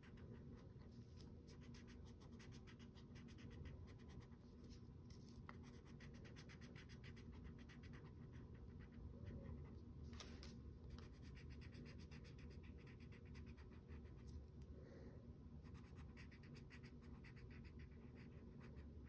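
Pen scratching faintly on a paper card in quick, short strokes as small hexagons are coloured in.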